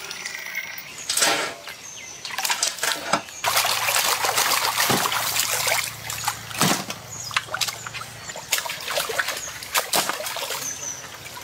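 Water splashing and trickling in a metal basin as live spiny lobsters are rinsed and lifted out dripping, with sharp clatters of shells knocking against the metal.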